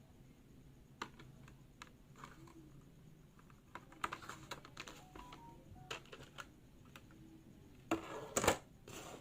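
Small plastic clicks and taps from handling a mini clip-on microphone and its packaging, with a louder rustle of the packaging about eight seconds in.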